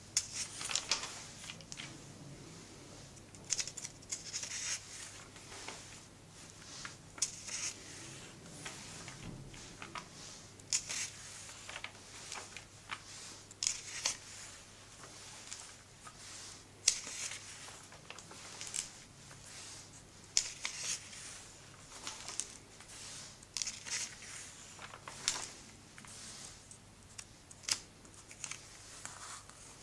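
Pages of a comic book being turned by hand one after another, each turn a short papery swish or flap, every couple of seconds.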